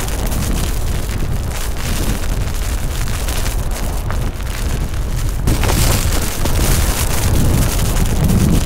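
Cyclone-force wind buffeting the microphone in a deep, gusty rumble, over a steady hiss of wind-driven rain and spray from a waterfall being blown back upward. The gusts grow stronger in the second half.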